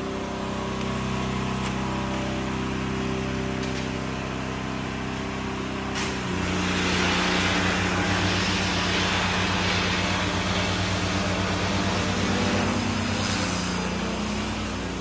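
A steady mechanical hum of several low tones under a hiss; after a click about six seconds in, the hum shifts and the hiss grows louder.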